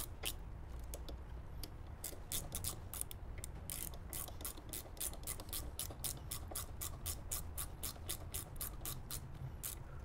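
Hand ratchet with a hex bit clicking in a quick even run, about five or six clicks a second, as it tightens the brake caliper's cap screws; it pauses for a couple of seconds near the start, then carries on.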